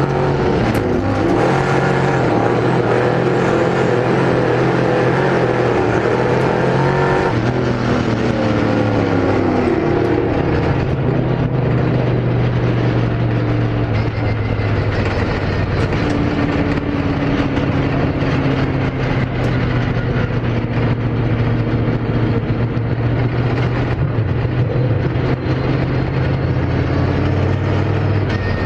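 Spec Sportsman dirt-track race car's engine running, heard from inside the cockpit, its pitch shifting up and down several times as the throttle is worked around the track.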